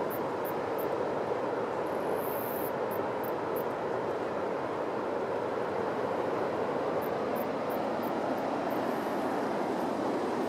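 Steady rushing roar of sea surf. Faint, very high-pitched chirps come in short runs now and then.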